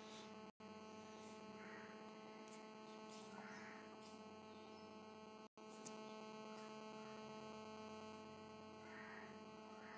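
Near silence with a faint, steady electrical hum. The sound cuts out completely for an instant twice, about half a second in and about five and a half seconds in.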